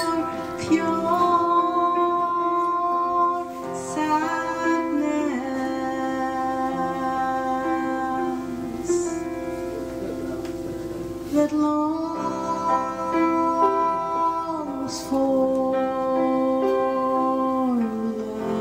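A woman singing live, holding long notes that slide from one pitch to the next, over piano accompaniment.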